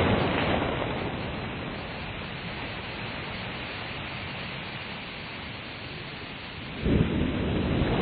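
Ocean surf breaking on a beach: the wash of one wave fades over the first couple of seconds to a quieter hiss, and the next wave breaks suddenly about seven seconds in.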